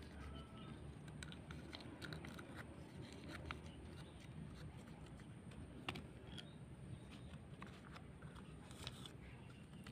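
Faint crinkling and scattered small clicks of cut plastic sheet being pressed and stuffed by hand into the socket of a sickle handle to fill it.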